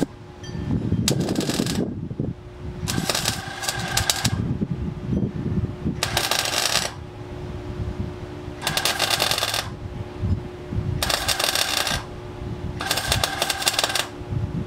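Arc welding on the car's engine-bay sheet metal, laid down as short welds: six crackling, sputtering bursts of about a second each, roughly every two seconds, with a steady low hum underneath.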